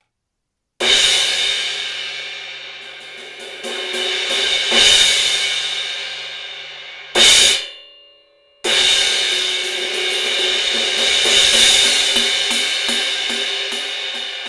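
Synergy Zircon cymbal struck several times, each strike ringing out with a long decay and the sound swelling again between strikes. One hit a little past halfway is cut off short, then the cymbal is struck again and left to ring.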